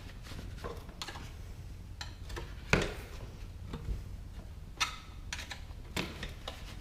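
Scattered sharp clicks and light knocks of plastic clips on a truck seat cushion being popped off and the seat handled, the loudest knock about two and three-quarter seconds in, over a low steady hum.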